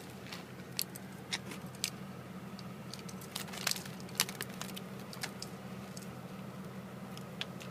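Scattered light clicks and taps, the sharpest two about halfway through, over a steady low hum.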